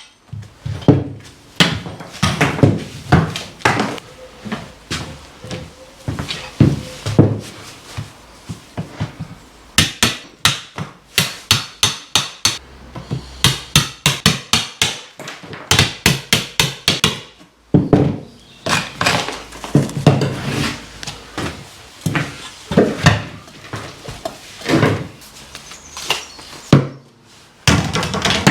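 Hammer striking a chisel, cutting out a recess in the wall for a socket back box. Separate sharp blows, with two quick runs of strikes in the middle.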